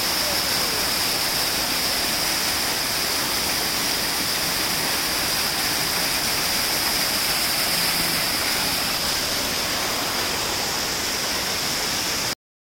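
Waterfall rushing over rocky boulders in a steady, dense hiss, with a steady high-pitched band of sound above the water. It cuts off abruptly near the end.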